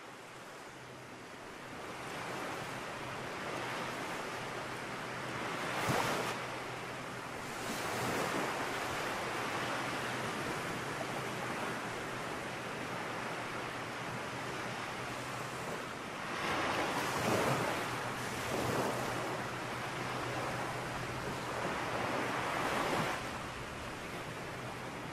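A steady rushing noise that swells and falls every few seconds, with a faint low hum underneath.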